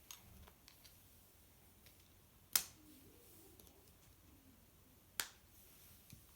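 Plastic Lock Stars toy pieces clicking as they are fitted together: two sharp clicks a couple of seconds apart, with a few faint ticks of handling between them.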